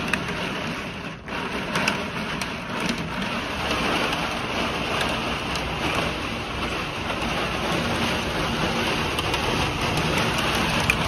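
Heavy rain and hail drumming on the body of a parked expedition camper during a thunderstorm, heard from inside as a dense, steady patter of many small hits.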